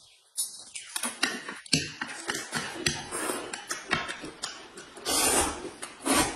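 Close-up eating sounds: noodles slurped and chewed, a dense run of wet clicks and smacks, with a longer slurp about five seconds in.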